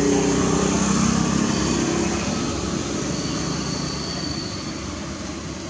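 A motor engine running in the background, with a steady low hum that is loudest in the first second or two and then slowly fades, as if passing away.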